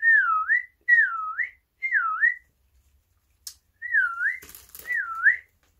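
Whistling: five short clear notes, each dipping in pitch and rising again. Three come in quick succession, then after a pause two more, with a brief rustle between the last two.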